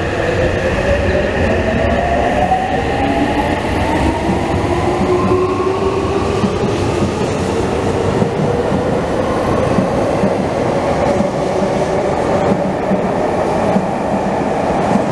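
A Seibu 6000 series electric train pulling away from a station platform. The whine of its VVVF inverter and traction motors rises in several tones as it accelerates, over the steady rumble of its wheels on the rails.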